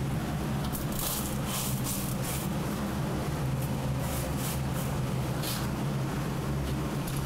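Dried anchovies rustling dryly as gloved hands stir them through coarse salt and spread them on a tray, in several short crisp bursts between about one and five and a half seconds in. A steady low machine hum runs underneath.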